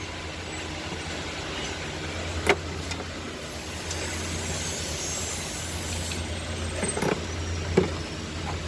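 Toyota Yaris engine idling with a steady low hum, broken by a few sharp knocks, on a car that has a misfire.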